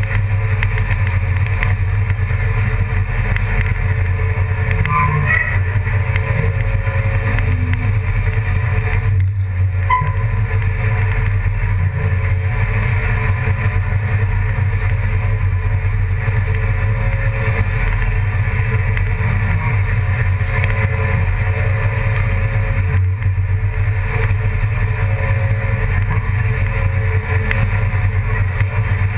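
An engine running steadily: a loud, unchanging low drone.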